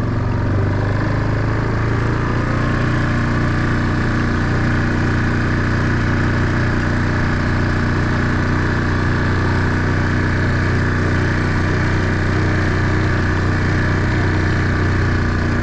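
A small vehicle engine running steadily at an even speed.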